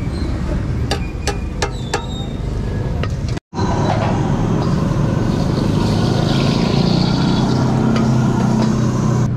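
A few sharp metallic clinks of utensils and containers, then a gas wok burner running with a steady rush under a hot, smoking wok, with a hiss of sizzling from the pan.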